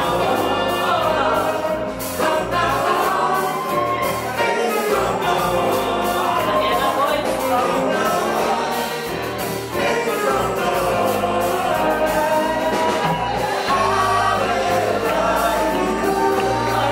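A woman singing a slow song with a small live band of keyboard, saxophone, drums and electric bass; her voice glides and holds long notes over the band.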